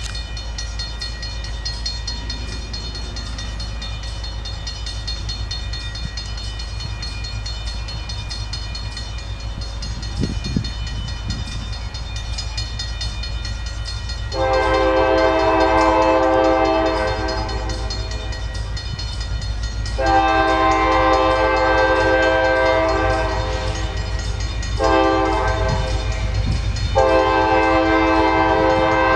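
Locomotive air horn of an approaching train sounding the grade-crossing signal: two long blasts, a short one, then another long one, beginning about halfway through, over a steady low rumble.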